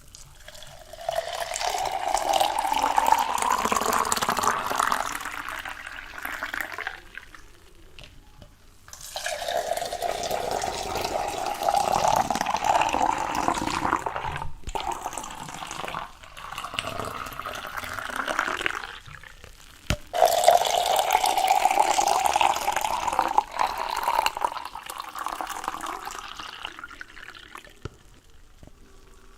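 Water running and splashing in four spells of a few seconds each, with short pauses between. During the first spell the pitch rises a little.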